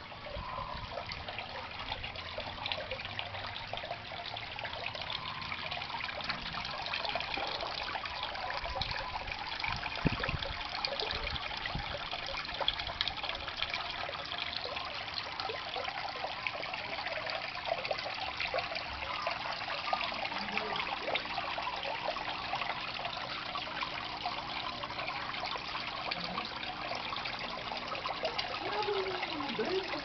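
Water from a homemade jug top filter splashing and trickling steadily into an aquarium's surface, with a sharp tick about ten seconds in.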